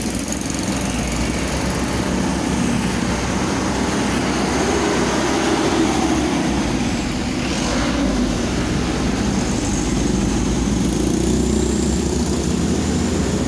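Excavator engine running steadily, its pitch rising and falling slightly as it works.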